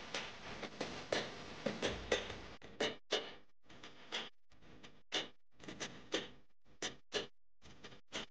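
Faint stirring of a curry in an aluminium kadhai: a dense stretch of bubbling and stirring noise, then from about three seconds in a string of short separate clinks and scrapes of the ladle against the pot.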